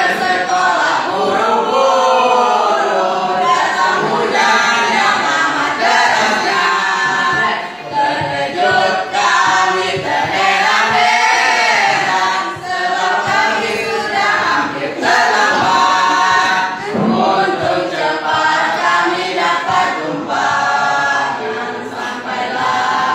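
A small mixed group of teenage boys and girls singing a song together without instrumental accompaniment, their voices continuous with only brief breath pauses.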